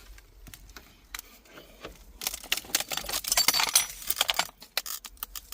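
A dense burst of rapid clicking and rattling lasting about two seconds, starting about two seconds in, with a few scattered clicks before and after.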